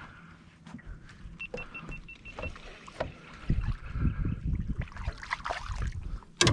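Knocks, bumps and water movement around a small fishing boat. A row of five short high beeps comes early, and a single sharp, loud crack sounds just before the end.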